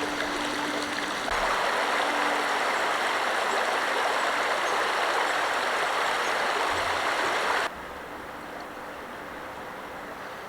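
Creek water running over ice and stones, a steady rushing. About three quarters of the way through it drops abruptly to a much quieter background.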